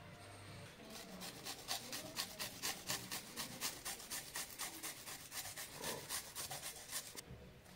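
Garlic being grated on a small flat metal hand grater: quick, even scraping strokes about four or five a second, stopping shortly before the end.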